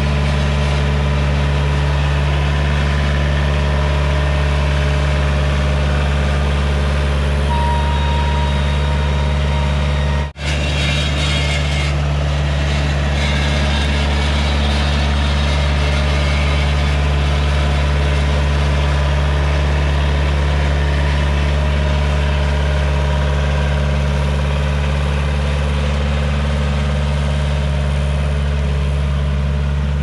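Skid steer engine running loud and steady at a constant speed, with a momentary dropout about ten seconds in.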